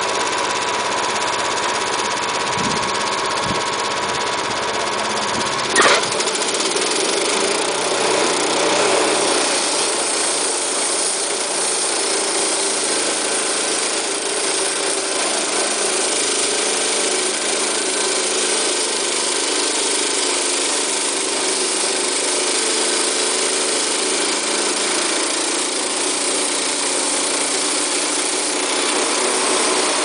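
Sawmill engine running steadily. About six seconds in there is a sharp knock, after which the low rumble drops away and a steady hiss dominates.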